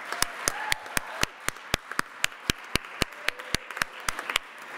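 Audience applauding. One loud, even clap about four times a second stands out over softer scattered clapping.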